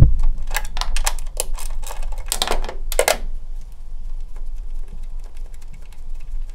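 Hand ratchet clicking in quick strokes as the fender's 10 mm mounting nuts are loosened: a run of sharp clicks, about five a second, for about three seconds, then fainter and sparser clicks.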